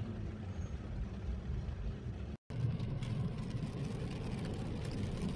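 Steady low rumble of a car driving on a wet road in rain, heard from inside the cabin. The sound drops out for a moment about two and a half seconds in, then carries on the same.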